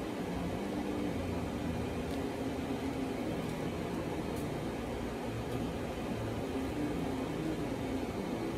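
Steady background hum, like a fan or air conditioner running, with faint low tones drifting in and out.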